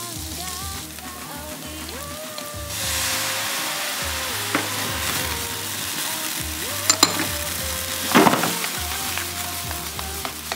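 Chopped onion and mushrooms sizzling as they fry in butter in a pan, the sizzle getting louder about three seconds in. A few sharp clicks follow, then a brief, sharper burst of hiss about eight seconds in.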